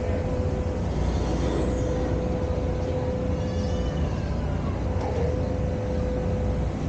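Riverboat under way: a steady low rumble with a constant hum.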